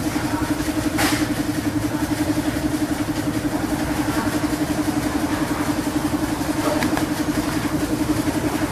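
An engine idling steadily, with a fast, even pulse. A sharp click comes about a second in.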